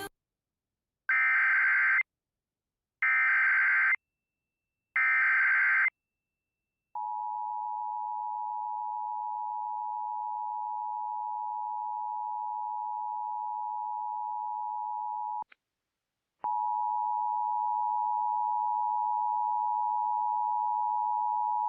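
Emergency Alert System alert starting: three one-second bursts of SAME header data, a harsh digital buzz, then the two-tone 853/960 Hz attention signal. The attention tone cuts out for about a second with a couple of clicks, then comes back slightly louder.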